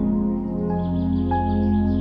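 Calm new-age ambient instrumental music: long sustained chords, with two soft higher notes entering partway through.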